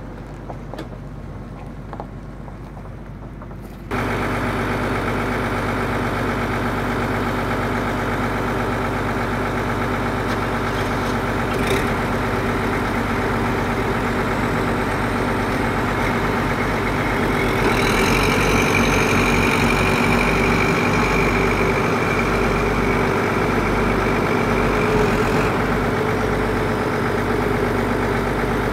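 Hitachi EX120 excavator's diesel engine running steadily, coming in suddenly louder about four seconds in after a quieter start. About two thirds of the way through a high steady whine joins it and stops a few seconds before the end, as the hydraulics work the boom and bale grab.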